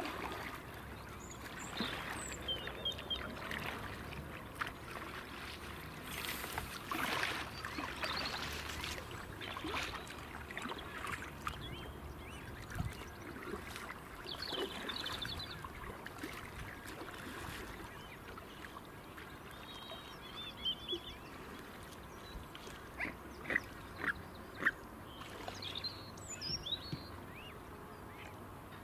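Waterside sounds: water splashing and lapping, with brief high bird calls now and then and a few sharp splashes or taps in the second half.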